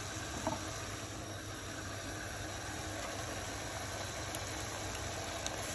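Steady low hum and hiss from the stovetop as lamb mince cooks over a high gas flame, with a faint click about half a second in.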